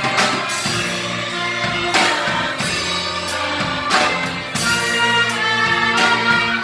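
Church orchestra playing a hymn: sustained ensemble notes with percussion strikes about every two seconds.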